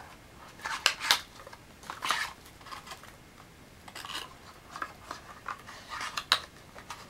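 Plastic tube of hydration tablets handled and worked at its cap by hand: scattered short plastic clicks and scrapes, the loudest about a second in and just past six seconds.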